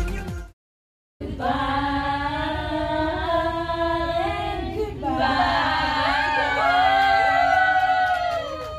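A music track cuts off just after the start; after about a second of silence, a group of women sing together without accompaniment. They hold long notes, and the voices glide up and down in pitch over the last few seconds.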